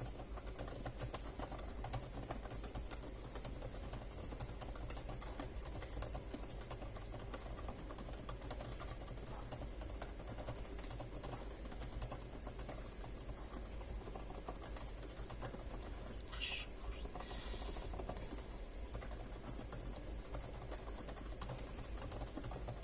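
Continuous fast typing on a Kinesis Advantage 2 contoured keyboard with Gazzew Boba U4 silent tactile switches (62 g springs): a dense run of soft, muted key clicks. About sixteen seconds in, one brief sharper click stands out.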